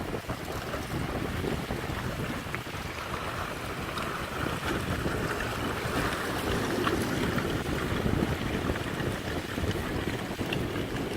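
Strong gusty wind blowing and buffeting the microphone with a low rumble and a rushing hiss, gusting harder around the middle.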